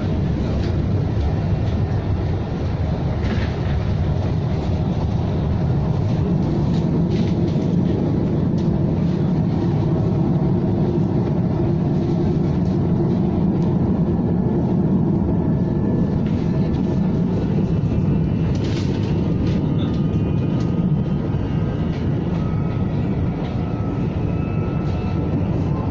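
KTM ETS electric train running steadily along the track, a continuous low rumble of wheels on rail heard from on board, with a few faint clicks.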